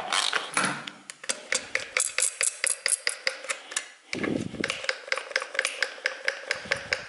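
Socket ratchet clicking in a fast, even run of ticks, about five or six a second, as a spark plug is worked out of the cylinder head of an air-cooled two-cylinder engine. A dull low thump about four seconds in.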